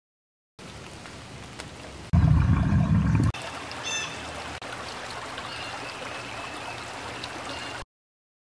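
Nature sound samples auditioned one after another. A soft water hiss leads into a loud low rumble lasting about a second, which switches to a babbling stream with bird chirps. The stream breaks off briefly once, resumes and then stops abruptly.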